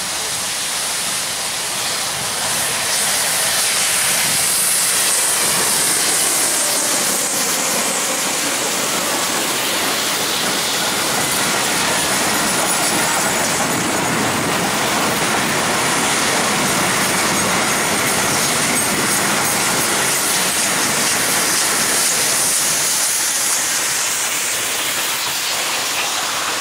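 Double-headed steam train, FS Gr.685 and Gr.740 locomotives, passing at speed: the locomotives working hard with steam exhaust, then a long rake of coaches rolling past on the rails. It is a steady, loud passing noise throughout.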